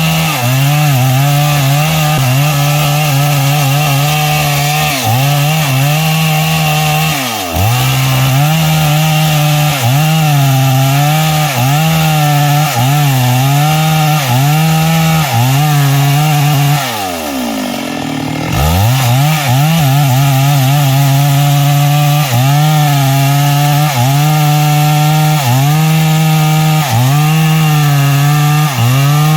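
Stihl MS382 two-stroke chainsaw with a 24-inch bar running at full throttle, cutting through a big log, its engine note wavering slightly under the load. A little over halfway through, the engine drops sharply toward idle and then revs back up to cutting speed.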